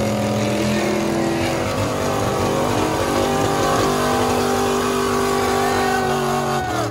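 Big lifted trucks' engines held at high revs under heavy load while pulling against each other in a tug-o-war, several steady engine notes at once. Near the end the revs fall away.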